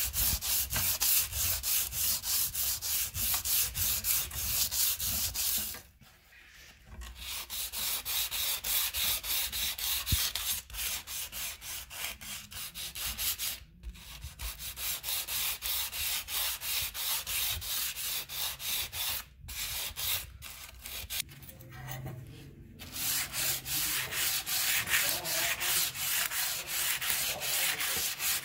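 Aluminium oxide sandpaper rubbed by hand back and forth along a metal sword blade, scrubbing off rust in quick, even strokes about four a second, with a few short breaks.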